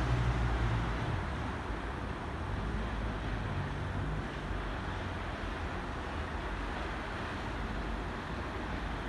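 Coupled Bombardier AGC B82500 multiple units approaching slowly over the station throat points: a steady low rumble and hiss. It is a little louder in the first second or so, with wind on the microphone.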